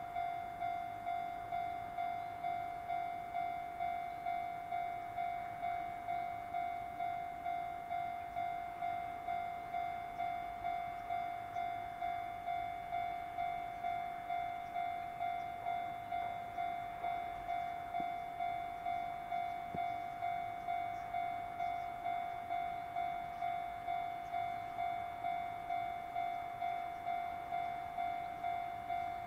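Japanese railway level-crossing warning bell ringing: a steady electronic ding repeated evenly, about three strikes every two seconds, signalling that a train is approaching.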